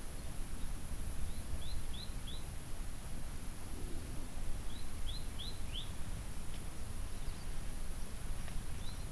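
Outdoor ambience with a steady low rumble and a constant high-pitched whine, over which a bird calls twice, each time a quick run of three or four short falling chirps, about a second and a half in and again about five seconds in.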